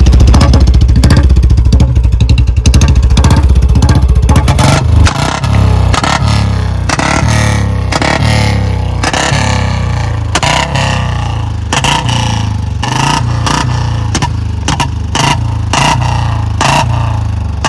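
Royal Enfield Bullet 350 single-cylinder engine, a BS4 model with a C-bend header pipe and mini Punjab silencer, held at high revs for about five seconds. Then it is blipped and let fall again and again, the exhaust firing very loud backfire pops (pataka) each time the throttle closes.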